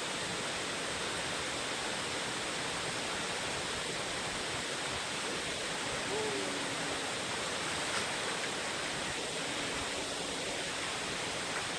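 Steady rushing of a waterfall, an even roar of falling water at a constant level. A faint short tone sounds about six seconds in and another near ten seconds.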